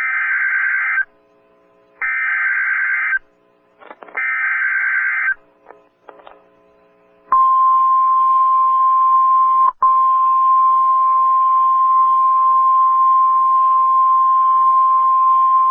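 Emergency Alert System alert opening: three one-second bursts of screeching digital SAME header data about a second apart, then a single steady attention tone of about 1050 Hz, with a brief dropout, signalling a severe thunderstorm warning.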